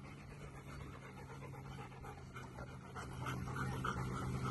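A Rottweiler panting close by in quick soft breaths, faint at first and louder from about three seconds in, over a low steady hum.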